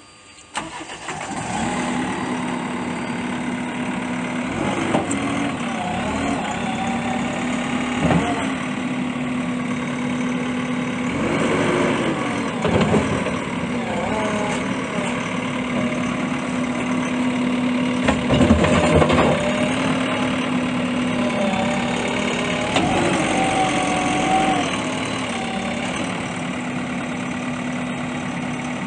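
A JCB 3DX Super backhoe loader's four-cylinder diesel engine starts about half a second in and then runs steadily near idle. Several times its note briefly dips and rises again as the hydraulics are worked, lifting the stabilizer legs and raising the loader arm.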